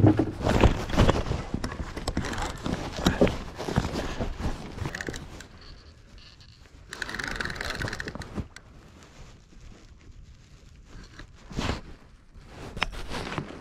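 Handling noise as a rod is taken up and a conventional baitcasting reel is cranked: clothing rustling, knocks against rod and reel, and the reel turning. It is busiest in the first few seconds and quieter after.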